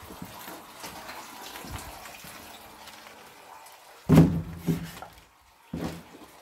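Footsteps on concrete stairs strewn with rubble. Faint scuffing at first, then heavy steps about four seconds in and again near the end, roughly one a second.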